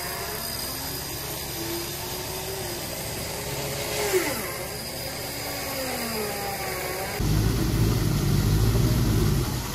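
4x4 engine revving up and down as an off-road vehicle struggles in deep mud. About seven seconds in, a louder, deeper engine sound close by takes over.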